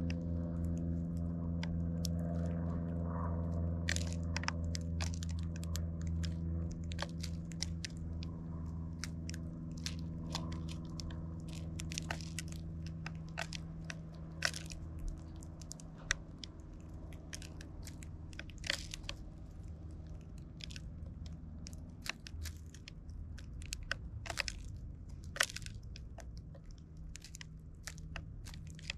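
Eurasian tree sparrows pecking and cracking seeds from plastic feeding trays: sharp, irregular clicks and crunches, more frequent in the second half. A steady low hum is strongest at the start and fades away over the first half.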